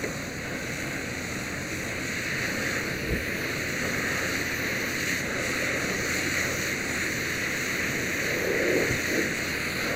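Fire hose stream spraying water onto a burning car, a steady rushing hiss of water spray and steam.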